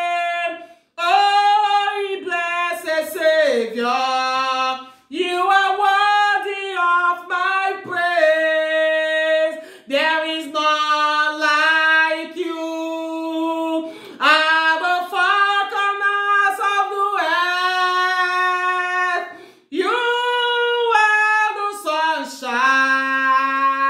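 A woman singing a slow worship song solo, unaccompanied, in long held notes with short breaths between phrases.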